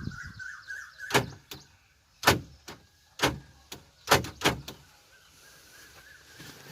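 Sharp clicks and knocks about a second apart over a thin steady whine, the whine strong at first and then faint, from the cab door and power window of an Ashok Leyland Dost light truck being worked.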